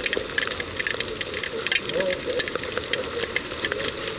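Heavy rain, with drops striking close by in quick, irregular ticks over a steady hiss.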